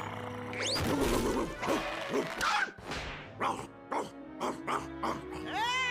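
Cartoon orchestral score with quick, sharp plucked and percussive hits. Near the end a cartoon dog breaks into a loud, wavering yell.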